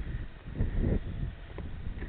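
Wind buffeting the microphone in irregular gusts, with a faint steady high-pitched tone underneath.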